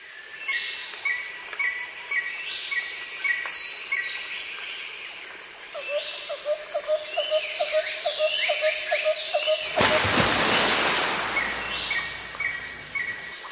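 Birds calling and insects chirping: many short repeated chirps and falling whistles, with a run of quicker, lower notes for about four seconds in the middle. About ten seconds in, a rushing noise swells up and slowly fades.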